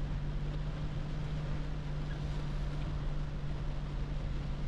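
Inside the cab of a 2010 Toyota Hilux pickup driving in pouring rain: a steady engine drone under a hiss of rain and wet-road tyre noise.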